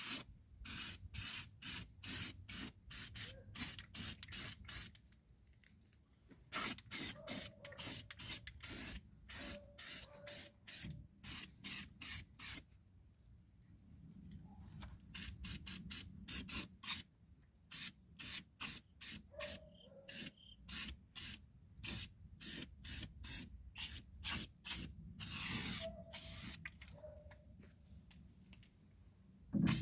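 Aerosol can of Rust-Oleum rubberized black undercoating spraying in short hissing bursts, about two a second, stopping for a second or two three times.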